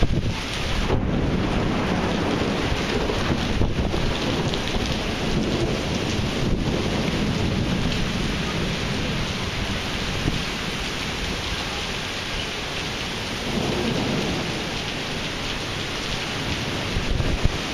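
Heavy thunderstorm rain pouring steadily onto pavement and parked cars, with a deep rumble that is strongest in the first half and swells again briefly later. A brief sharp crack near the end.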